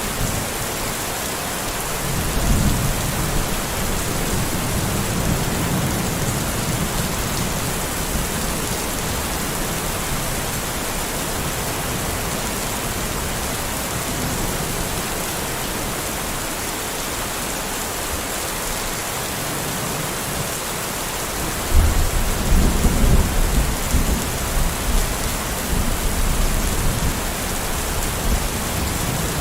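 Steady rain with thunder: a low rumble about two seconds in that dies away after a few seconds, and a sudden louder clap a little past twenty seconds in that rolls on for several seconds.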